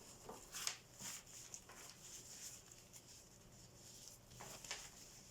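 Faint rustling and handling of a small raincoat-fabric waist bag and its packaging: a few soft brushes in the first second and again near the end, quiet in between.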